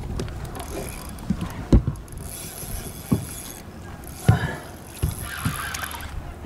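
Spinning reel being cranked under load as a large trout is fought close beside the boat, with several dull knocks spaced through.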